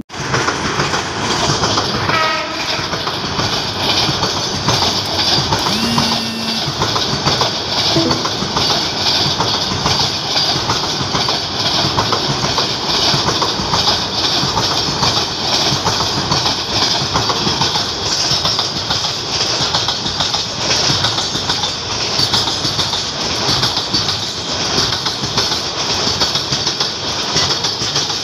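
Container freight train's flat wagons rolling past close by: a loud, steady rumble and clatter of wheels over the rails.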